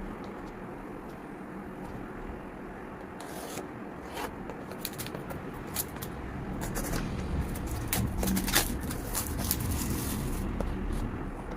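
Packaging of a charger being handled and opened: scraping and rustling with many short sharp clicks and snaps, which come thicker from about four seconds in, over a steady low rumble.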